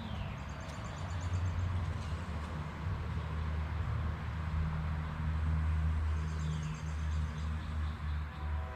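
Low, steady outdoor rumble that rises and falls, with a small bird's rapid high trill heard twice, each with a short falling whistle. No arrow release or impact stands out.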